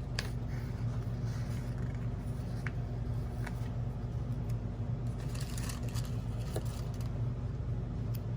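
Steady low background hum, with soft scrapes, rustles and a few light clicks from stickers and paper being handled on a planner.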